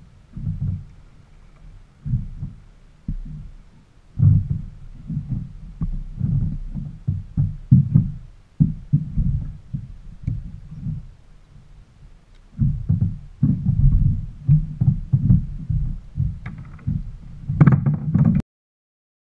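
Wind buffeting the kayak-mounted camera's microphone: irregular low rumbling gusts, rising to a rougher, brighter stretch near the end before the sound cuts off suddenly.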